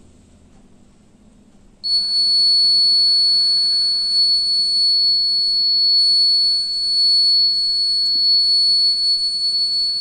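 Buzzer of a homemade fire alarm model sounding one steady, loud, high-pitched tone that switches on abruptly about two seconds in, when a lit match held to its tubelight-starter heat sensor closes the circuit.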